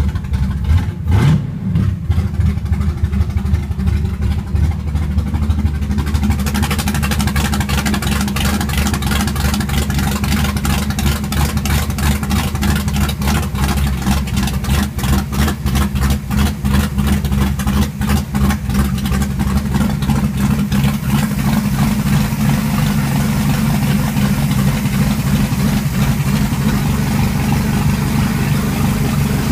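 The Carrera 235 Viper's inboard engine running at idle, a steady low note with a harsher, pulsing layer above it from about six seconds in.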